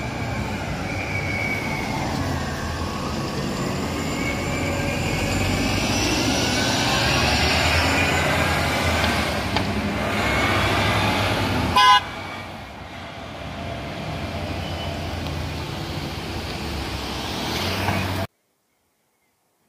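City bus and street traffic running, with engine noise and gliding whines as the bus pulls away. A single short horn toot sounds about twelve seconds in. The sound then cuts off to silence shortly before the end.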